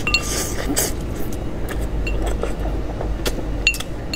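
A chicken head being eaten by hand: sucking and chewing at the small bones, with a few sharp clinks, some briefly ringing, against a porcelain plate, over a steady low hum.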